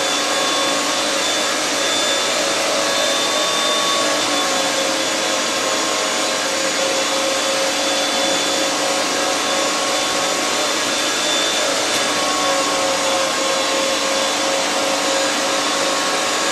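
Arçelik K 1766 1400 W electric meat grinder running steadily under load as chunks of meat are pushed down the feed tube and minced: an even motor noise with a steady whine over it.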